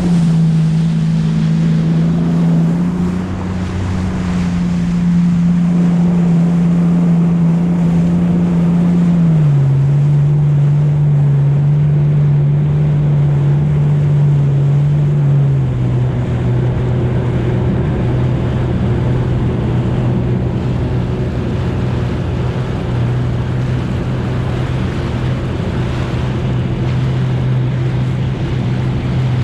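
Jet ski engine running at a steady speed, its hum stepping down in pitch twice, about nine seconds in and again about fifteen seconds in, as the throttle is eased back. Rushing water and wind noise on the microphone run underneath.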